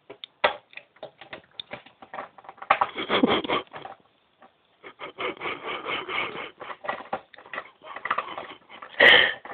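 Irregular rubbing and scraping right against a phone's microphone, in uneven clusters, with a louder burst about nine seconds in.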